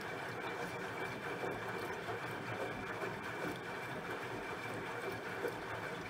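Bosch front-loading washing machine running its 90 °C drum clean programme, the drum turning with hot soapy water tumbling inside. A steady running sound with a faint steady high tone.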